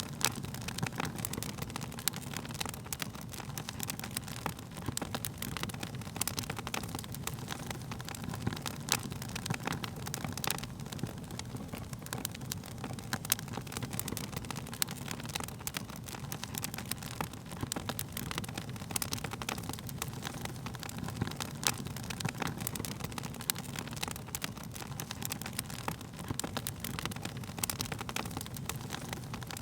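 Wood fire burning with a steady low rumble of flames and frequent sharp, irregular crackles and pops from the burning logs.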